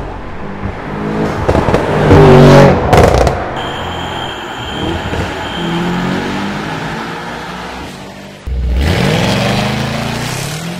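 Mercedes-AMG E63 S's 4.0-litre twin-turbo V8 through an iPE aftermarket exhaust, accelerating hard with revs rising and falling through gear changes. It is loudest in a burst about two to three seconds in. About eight and a half seconds in the sound jumps suddenly to another hard pull, rising steeply in pitch.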